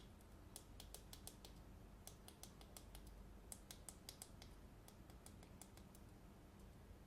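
Plastic fidget cube being fiddled with: a run of faint, quick clicks at irregular intervals, several a second and often in little clusters, from its buttons and switches being pressed.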